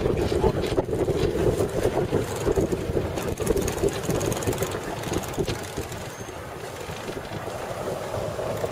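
Open-roofed safari vehicle driving on a dirt track: engine and road rumble with wind buffeting the microphone, growing quieter about halfway through.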